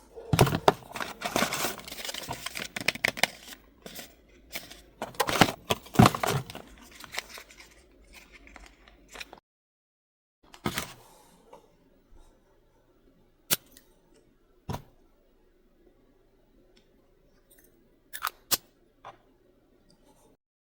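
Packaging being handled in an unboxing: about nine seconds of dense crinkling, rustling and tearing, then a handful of sharp clicks and taps with quiet between them.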